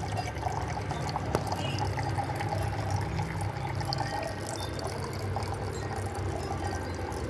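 Small tabletop decorative water fountains, with water trickling and pouring steadily into their basins.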